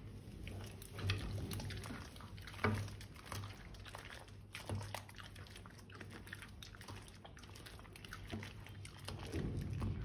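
Wet slime being poured and squished, making irregular small sticky clicks and smacks over a low steady hum.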